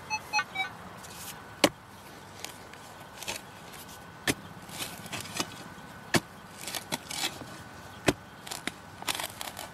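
Metal spade blade chopping and scraping into dry, clumpy soil, with four sharp strikes about two seconds apart and crumbling, scraping dirt between them.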